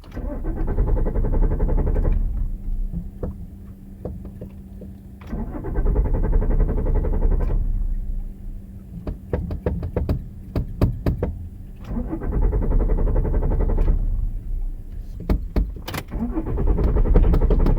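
Car engine being cranked by its starter without catching, in four attempts of about two seconds each, with quieter pauses between them that are filled with clicks. The last attempt begins near the end and is still going.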